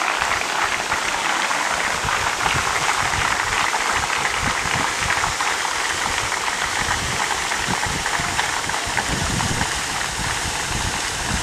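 Wind gusting on the microphone, with irregular low buffeting over a steady rushing hiss.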